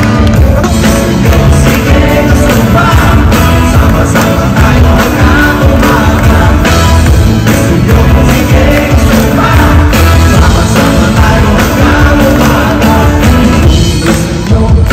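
Live pop-rock band playing loudly, with drums, bass guitar and a male lead singer, heard through the hall's PA from the audience.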